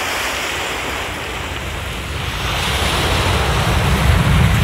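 Surf washing onto a beach, with wind buffeting the microphone; the low wind rumble swells louder in the second half and then cuts off suddenly.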